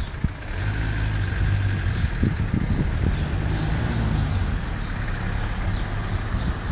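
A motor vehicle engine running steadily, a low hum that sets in about half a second in and eases near the end. Short high chirps recur over it.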